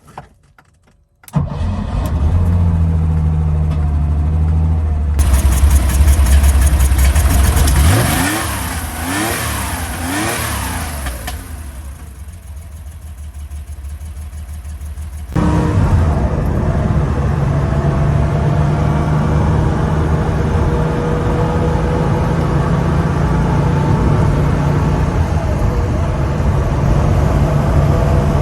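Air-cooled flat-six engine of a 1972 Porsche 911 2.4T running, coming in abruptly about a second in. Around the middle the revs rise and fall several times, then it is quieter for a few seconds. After a sudden change it runs steadily to the end.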